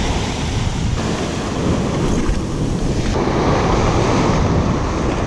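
Ocean surf breaking and washing up the beach close by. A wave's rush of whitewater swells louder about three seconds in.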